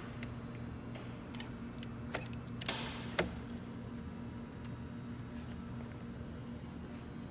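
A few sharp metallic clicks and knocks with a short scrape among them, the loudest knock about three seconds in, from metal gearbox parts and tools being handled during disassembly, over a steady low hum.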